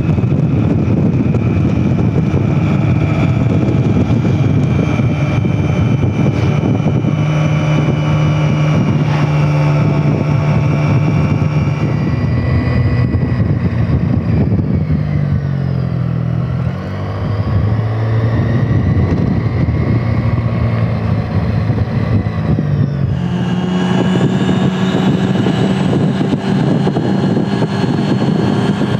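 Engine of a moving road vehicle running steadily, its pitch sinking as it slows a little past halfway, then stepping back up as it picks up speed again.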